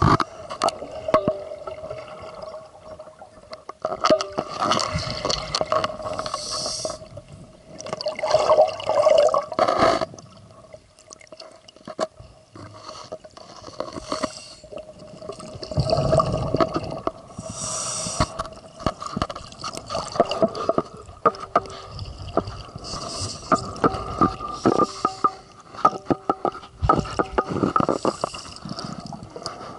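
Underwater scuba breathing through a regulator: exhaled bubbles rush out every few seconds, with sharp clicks and knocks of gear handling and a faint steady hum.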